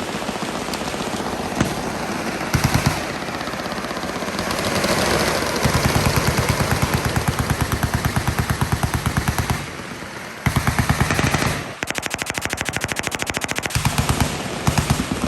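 Fully automatic machine guns firing rapid bursts, the shots overlapping into a long continuous stretch through the middle, then broken into short bursts with brief gaps near the end.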